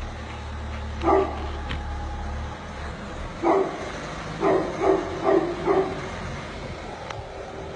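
A dog barking: one bark about a second in, then a quick run of five from about three and a half seconds. Under the first part runs the low hum of a car engine manoeuvring at low speed, which drops away about two and a half seconds in.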